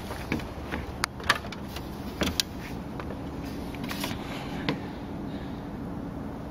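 Handling and footstep knocks as someone walks and climbs up toward a wooden bridge, several sharp clicks and knocks in the first half. A steady low hum runs underneath, plainer from about halfway.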